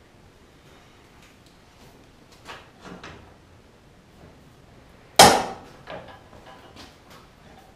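Steel flat bar being worked through a hand-cranked ring roller: a few light knocks, then one loud, sharp metal clank about five seconds in that rings briefly, followed by a few lighter clinks.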